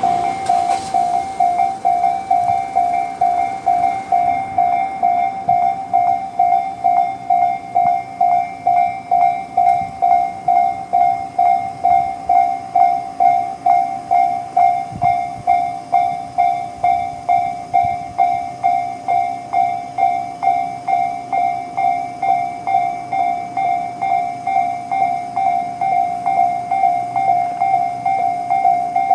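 Japanese railway level-crossing electronic warning bell (Tobu "sound C") ringing steadily, about two dings a second, warning of a train. The noise of a passing train fades out in the first moment.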